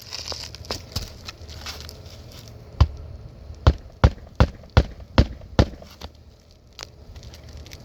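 Hammer driving nails into a roof shingle: a run of about seven sharp strikes, two to three a second, in the middle, after a brief rustle at the start.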